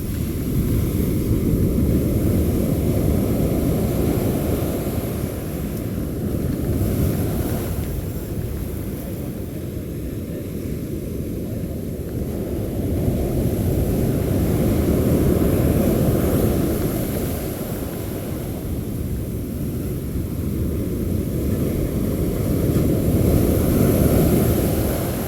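Low rumble of surf breaking on a beach, mixed with wind on the microphone, swelling and easing every several seconds.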